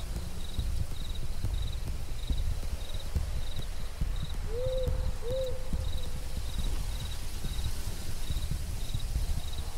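Crickets chirping steadily, about two chirps a second, over a low rumble. About halfway through come two short hoots, like an owl's.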